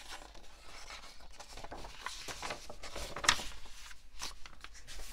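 Paper pages of a paperback picture book being turned and pressed flat by hand: rustling and scraping, with one louder sharp page flap about three seconds in.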